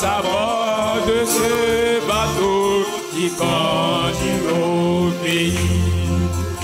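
Live gospel hymn: a man singing a melody over guitar and a steady bass line.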